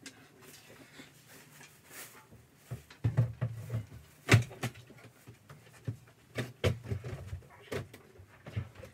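Things being handled and moved about inside a clothes closet: scattered knocks and thumps with rustling between them. The loudest knock comes a little past the middle.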